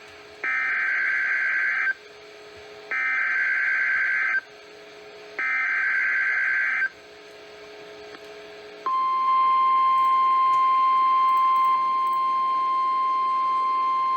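NOAA Weather Radio emergency alert: three bursts of the Emergency Alert System's SAME digital data tones, each about a second and a half long and about a second apart. A steady 1050 Hz weather radio warning alarm tone follows, starting about nine seconds in. This header and alarm announce a new warning, here a severe thunderstorm warning.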